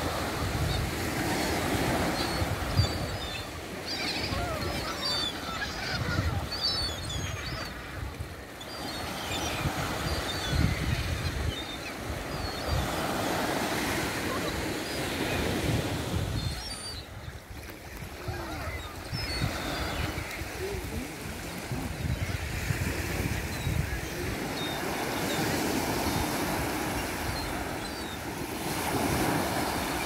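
Flock of gulls giving many short cries over small waves washing onto a sandy beach, the surf swelling and fading every few seconds.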